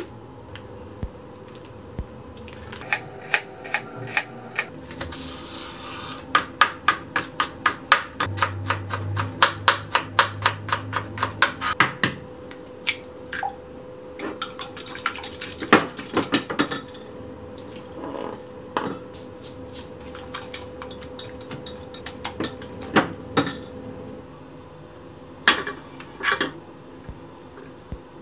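Eggs being mixed in a glass measuring cup, a utensil clicking against the glass in quick, even strokes of about four a second, with further clinks of kitchenware.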